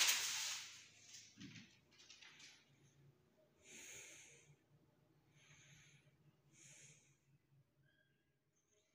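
A person breathing close to the microphone: a loud short rush of breath at the very start, then three faint breaths about four, five and a half and seven seconds in, over a faint steady low hum.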